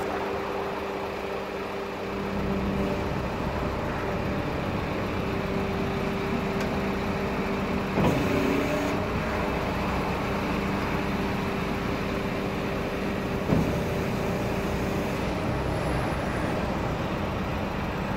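Isuzu Forward refuse truck's hydraulic trade bin lift cycling up and back down, driven by the truck's running diesel engine: a steady mechanical hum that grows louder about two seconds in, with a metallic clunk about eight seconds in and another near fourteen seconds.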